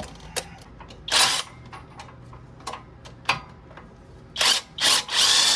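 Impact wrench on a swivel socket running in short bursts to loosen the hub assembly's flange bolts: one burst about a second in, then three close together near the end. Light clicks of metal tools come between the bursts.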